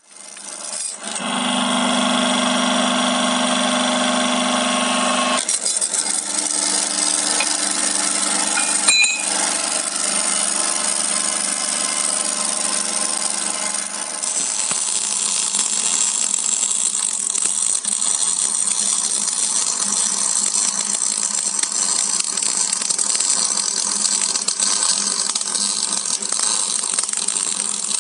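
Metal lathe starting up about a second in and running steadily with a motor hum, with one knock about nine seconds in. In the second half a harsh steady hiss joins, from arc welding on the part turning in the lathe.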